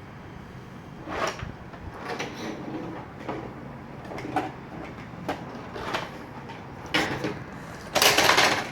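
Plastic knocks and clacks from a toy car transporter and its toy cars being handled, with a longer, louder rattling clatter near the end.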